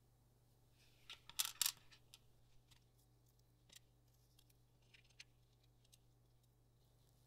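Small pieces of cured glitter resin clicking and tapping as they are handled and set down on a hard tabletop: a quick cluster of sharp clicks about a second and a half in, then a few light scattered ticks. A faint steady low hum underneath.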